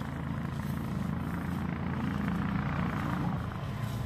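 A motor vehicle engine running steadily with a low hum, growing louder near the end.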